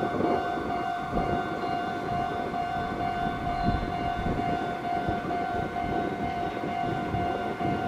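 A Meitetsu electric train approaching at a distance, with a dense, steady rumble. Over it runs a continuous high ringing alarm-like tone that pulses slightly.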